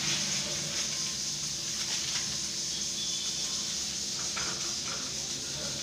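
Steady hiss of lit gas stove burners and water boiling in a steel pot, with a few faint clicks of a spoon stirring in the pot about four seconds in.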